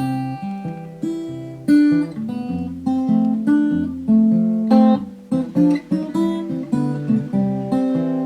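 Background music on acoustic guitar, picked notes and strummed chords in a steady flowing rhythm.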